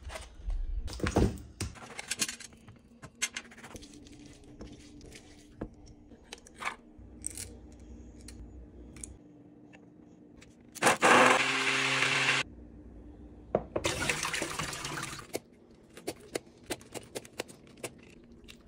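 Crinkling of the plastic packaging around vacuum-packed chicken drumsticks, then two bursts of running water, each a second or two long, then a run of sharp clicks, about three a second, from a needle meat tenderizer being pressed into raw chicken drumsticks.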